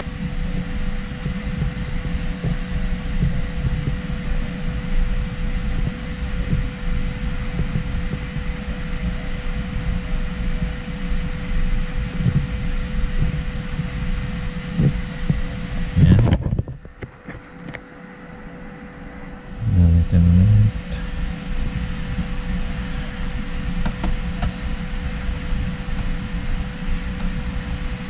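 Steady hum of a fan with a faint constant tone running through it. The hum drops away for about three seconds around the middle, and a few short low thumps come just before that drop and just after it.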